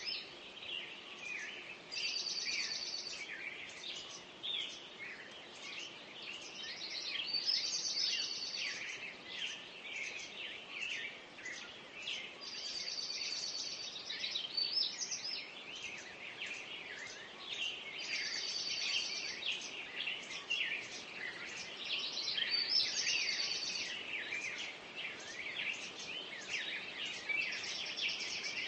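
Dawn chorus of many songbirds singing at once, a steady mix of overlapping chirps and whistles. One bird repeats a short, rapid trill about every five seconds.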